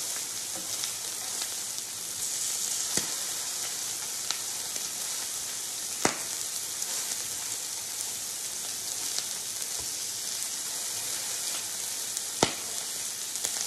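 Bacon and sausage patties sizzling steadily on an electric griddle, with a few sharp clicks of the spatula against the griddle plate, the loudest about six seconds in and near the end.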